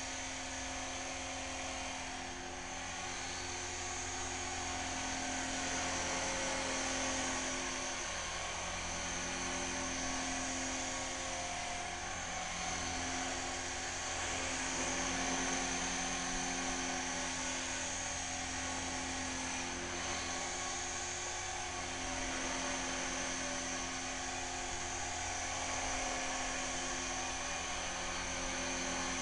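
Align T-Rex 450 V2 electric RC helicopter in flight: a continuous high-pitched motor whine with rotor noise, its pitch wavering slightly as it manoeuvres.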